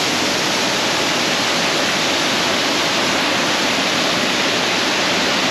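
Waterfall pouring steadily: a loud, even rush of falling water.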